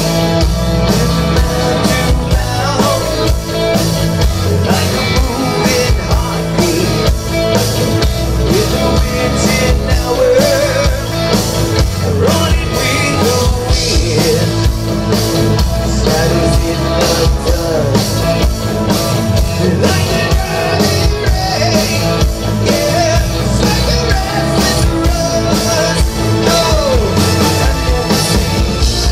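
Live rock band playing at full volume with a steady driving beat: drum kit, electric guitar, bass guitar and synthesizer keyboard.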